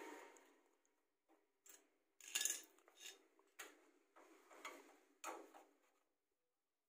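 Nut driver working a nut loose on the copier's sheet-metal frame: a string of short metal clicks and scrapes, about seven, the loudest a little over two seconds in, stopping about six seconds in.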